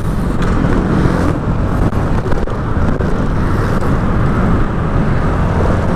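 Steady wind rush over the microphone of a moving Honda SH125i scooter, with the scooter's single-cylinder engine running underneath.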